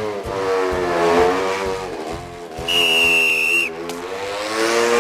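A motorcycle engine revving, its pitch rising and falling. A little under three seconds in there is one shrill traffic-police whistle blast lasting about a second, and the engine is heard again near the end.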